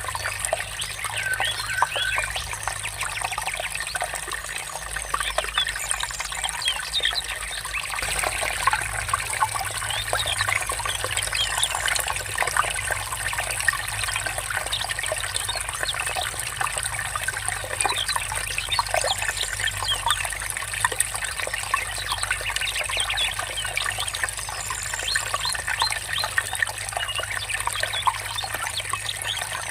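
Stream water trickling and bubbling steadily, with birds calling now and then.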